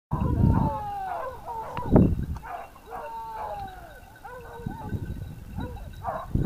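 A pack of hunting hounds baying, several long falling calls overlapping one another, the hounds giving voice as they push a wild boar through the scrub. A single sharp knock about two seconds in.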